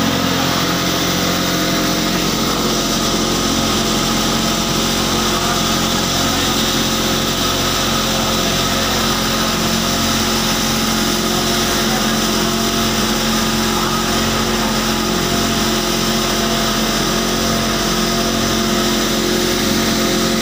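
Belt-driven feed pulverizer and its electric motor running at steady speed: a loud, even machine hum with steady whining tones, unchanging throughout.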